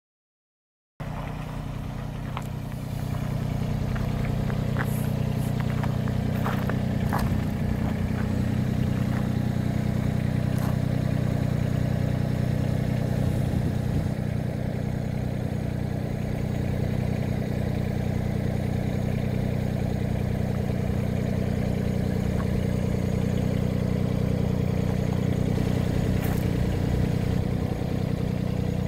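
Diesel engine of a 2011 Yanmar SV15 mini excavator idling steadily, starting about a second in, with a few light clicks over it.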